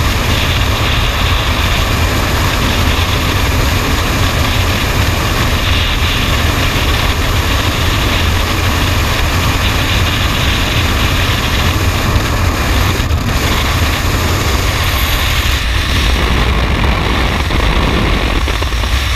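Loud, steady rush of freefall wind buffeting the microphone of a body-mounted camera.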